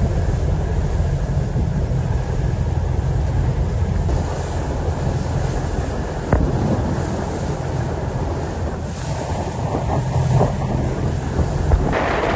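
Boat motor running steadily under heavy wind buffeting on the microphone, with a short click about six seconds in.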